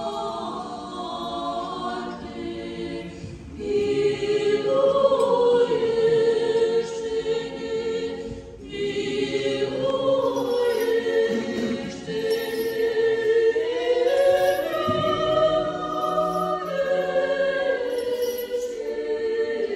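Church choir singing an Orthodox vigil hymn with unaccompanied voices, in held chords that move from note to note, phrase by phrase with short breaks between.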